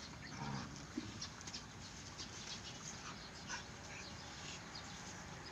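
Two dogs play-fighting, with a few short low growls in the first second and light scuffling.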